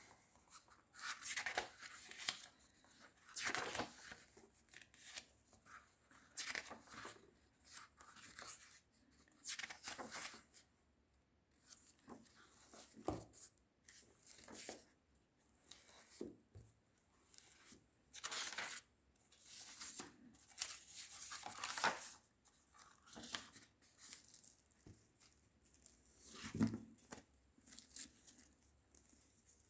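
Paper pages of a book being flipped through by hand: a run of short papery swishes and flutters at irregular intervals, with a soft knock near the end.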